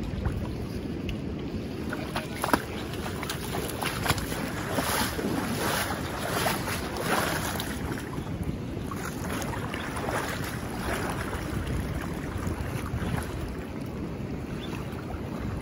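Steady rush of a river current running over shallow rapids, with wind on the microphone and a few short knocks or splashes in the middle.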